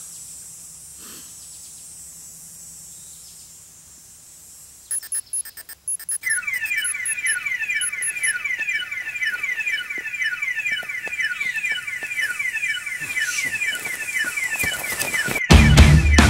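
Electronic alarm-like sound effect: stuttering glitchy bursts about five seconds in, then a rapidly repeating falling beep that runs on. Loud music cuts in just before the end.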